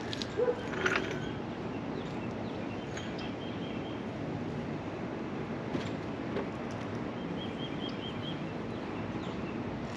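Outdoor ambience: a steady background rush with a few clicks in the first second and faint short runs of high bird chirps, one about three seconds in and another near the end.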